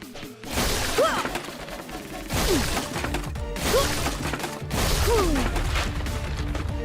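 Cartoon sound effects of wooden planks being smashed by punches and kicks: a series of cracking, splintering hits about a second apart, each with a short pitched yell, over background music.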